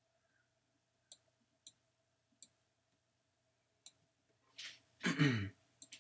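Computer mouse clicks, single sharp clicks about a second apart, then a quick run of them at the very end. Shortly before that run, a person takes a short breath in and lets out a sigh that falls in pitch, the loudest sound here.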